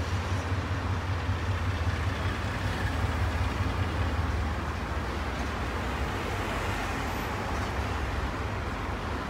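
Freight train with diesel locomotives rolling slowly past: a steady low rumble from the locomotives and wheels on the rails, a little louder in the first half.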